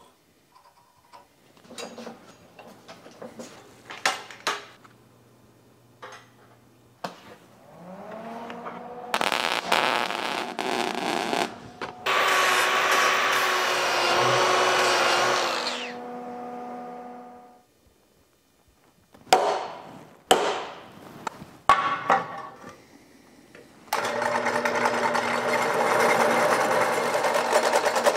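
Light clicks of steel being handled, then an angle grinder spins up with a rising whine and cuts steel for about seven seconds before winding down. A few sharp knocks follow, and near the end a drill press runs, drilling a hole in a steel bracket.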